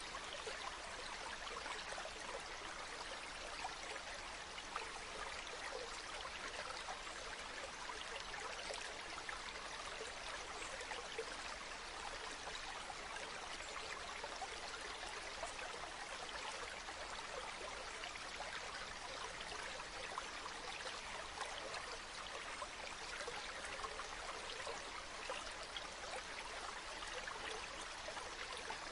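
Running water of a mountain stream: a steady, even rush of flowing water with fine trickling detail.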